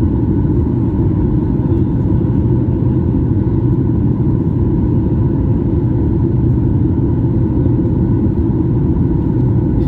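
Jet airliner cabin noise in flight: a steady, loud drone of the engines and rushing air heard from inside the cabin at a window seat over the wing, with faint steady tones running through it.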